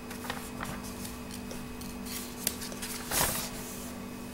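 Pages of a glossy magazine being turned by hand: light paper rustles and small taps, with one louder page-flip swish about three seconds in. A steady low hum runs underneath.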